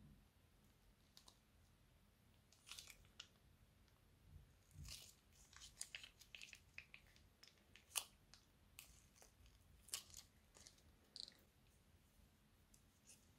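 Faint, irregular crackles, pops and crinkles as crunchy slime is squeezed out of a plastic piping bag and the bag is wrung, with one sharper click about eight seconds in.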